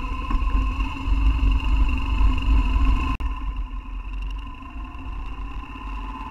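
BMW R1200GS boxer-twin motorcycle engine running on the move, with heavy wind rumble on the bike-mounted microphone. It drops out briefly about three seconds in and comes back quieter, with the engine pitch slowly rising.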